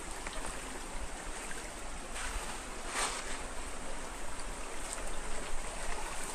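Shallow rocky forest stream babbling steadily, with two brief sharp noises about two and three seconds in.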